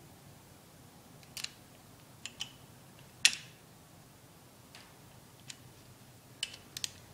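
Scattered sharp metallic clicks from a torque wrench and socket worked on the load bolts of a Ford Racing differential girdle as they are torqued to 5 foot-pounds. There are about eight clicks, some in quick pairs, and the loudest comes about three seconds in.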